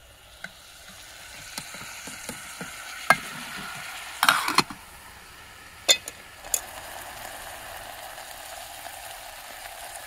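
Chopped onions, spring onions and tomatoes sizzling in oil in a pan while being stirred. A spoon clicks and scrapes against the pan now and then, with the loudest scraping about four and a half seconds in.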